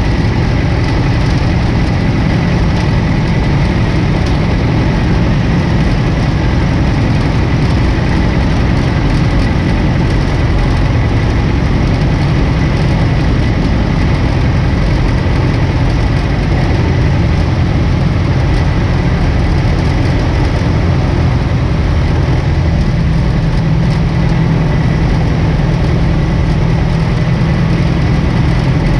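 1947 Aeronca Champ's engine and propeller droning steadily in cruise flight, heard inside the cabin. A loud, even hum with no change in power.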